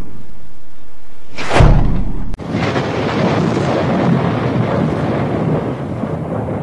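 Intro sound effects: a whoosh about a second and a half in that ends in a deep boom, then a low rolling rumble like thunder.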